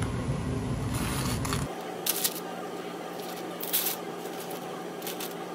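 Metal kitchen tongs clicking and scraping against a stainless mesh strainer as fried bread pies are lifted out and set down on paper, a few short light clicks spaced over several seconds. A low rumble stops about a second and a half in, leaving a steady low hum under the clicks.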